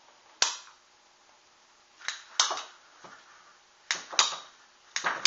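Hand-held PVC pipe cutter being squeezed shut on half-inch PVC water pipe: a series of sharp clicks and crunches, mostly in pairs a second or two apart, as the blade bites into the pipe wall.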